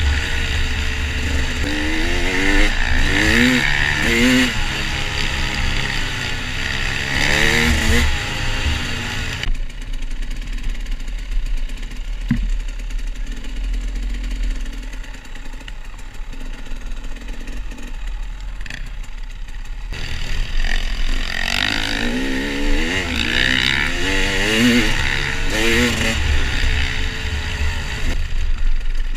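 KTM 300 XC-W two-stroke dirt bike engine revving up and down repeatedly as it is ridden along a trail. A quieter stretch in the middle runs at low, even revs before the revving picks up again.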